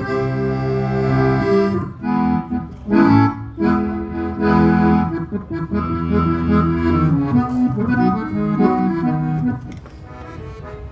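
Accordion playing a melody over held chords and bass notes. It breaks off about nine and a half seconds in.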